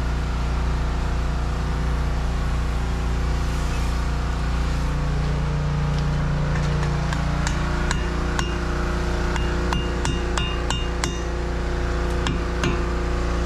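Metal hand tools knocking and clinking against metal while the propeller nut is being worked, a string of sharp taps in the second half, some with a short ring. A steady low hum runs underneath.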